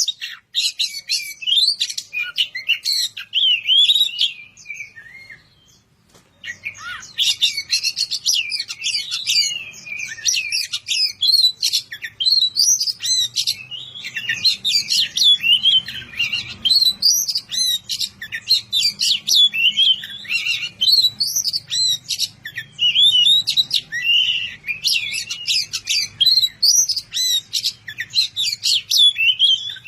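Oriental magpie-robin (kacer) singing a fast, varied song of whistles and chattering notes, pausing briefly about five seconds in, then carrying on without a break.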